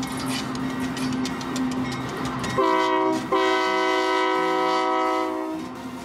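Diesel freight locomotive passing with the rumble and clatter of its train. About two and a half seconds in, its air horn gives a short blast, then a longer one of about two seconds.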